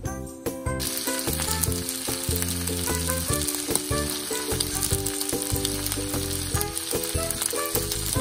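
Rice and kimchi sizzling in a frying pan as a steady hiss that starts about a second in, with background music carrying a steady low beat.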